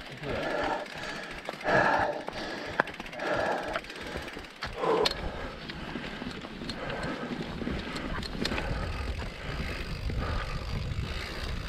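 Heavy breathing, a breath about every second and a half, while the mountain bike is pushed uphill. From about five seconds in the bike rolls down a dirt singletrack: a steady low rumble of tyres and wind with scattered sharp clicks and rattles from the bike.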